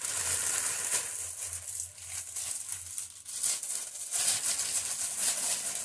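Thin plastic mailer bag crinkling and rustling in irregular bursts as it is handled and unpacked.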